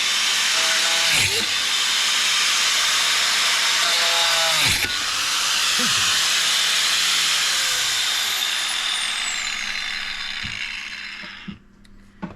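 A power tool cutting into a soft aluminium part: a steady, loud grinding hiss. It fades away about eleven and a half seconds in as the tool winds down.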